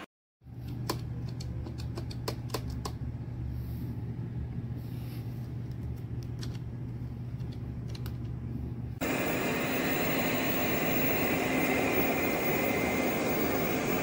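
Low hum with scattered sharp clicks as a robot vacuum's drive wheel is turned by hand. About nine seconds in, it gives way to a louder robot vacuum running, a steady whirring with a high whine.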